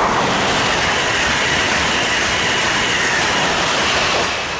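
Amtrak Acela Express high-speed electric trainset passing at speed: a loud, steady rush of wheels and air that starts to fade about four seconds in as the train moves off.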